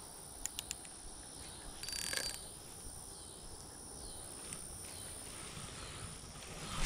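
A cast with a fishing rod and reel: a few light clicks, then a short swish of the line going out about two seconds in, over a steady high-pitched insect drone. A second brief swish comes near the end.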